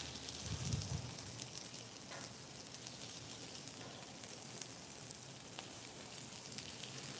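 Chicken thigh pieces sizzling on a hot flat-top griddle: a faint, steady hiss with scattered small pops. A brief low rumble comes less than a second in.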